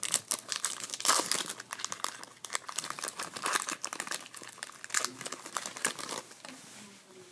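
Foil wrapper of a trading card pack being torn open and crinkled by hand, a dense run of crackles that thins out near the end.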